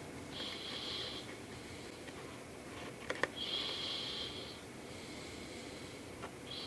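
A man breathing slowly through his nose close by: three long breaths about three seconds apart, each with a faint whistling hiss. A couple of light clicks come about three seconds in.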